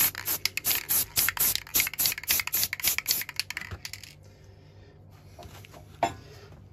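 Aerosol can of black spray primer in use: a quick run of sharp, clicking hissy pulses, several a second, that stops about four seconds in, followed by a single sharp click near the end.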